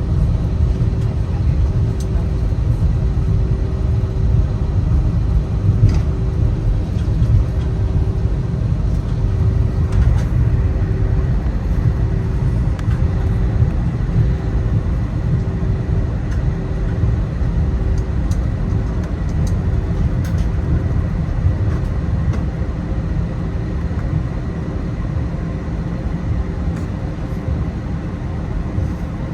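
Jet airliner cabin noise: a steady, loud low rumble of engines and airflow, with a faint hum and occasional light clicks and rattles.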